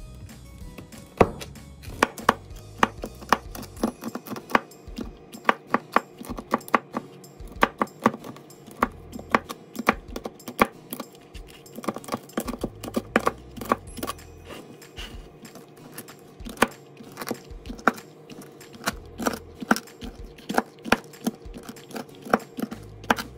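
Chef's knife chopping crispy turkey bacon on a plastic cutting board: sharp knocks of the blade on the board, about two or three a second in an irregular rhythm. Background music plays underneath.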